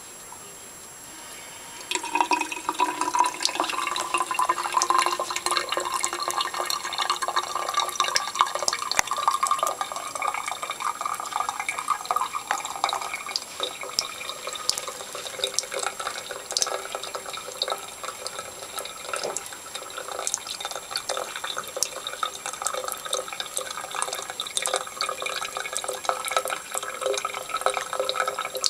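Tap water running into a sink or tub, starting about two seconds in, with irregular splashes and drips as a cat bats at the stream.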